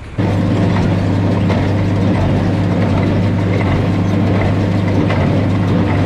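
John Deere tractor engine running steadily under load, driving a Hesston small square baler whose pickup and plunger mechanism clatter along as it bales hay.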